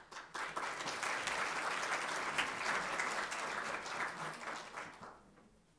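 Audience applauding. The clapping starts right away, holds steady through the middle and dies away near the end.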